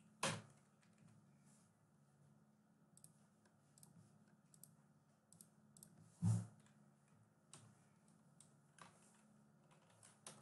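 Sparse keystrokes and clicks on a computer keyboard, with two louder knocks, one right at the start and one about six seconds in, over a faint steady low hum.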